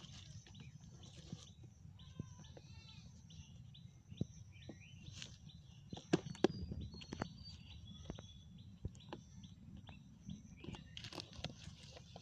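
Small birds chirping in short, twisting calls, mixed with scattered taps, clicks and rustles from hands tying string around a banana-stem sheath trap; the sharpest knocks come about six seconds in.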